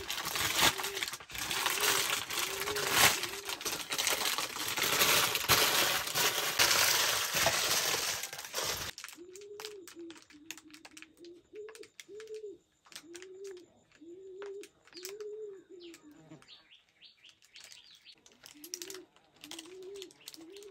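Thin plastic bag crinkling and rustling loudly as it is handled, for about the first nine seconds. After that it goes much quieter: a dove coos repeatedly in the background, with small crackles and clicks of plastic being worked by hand.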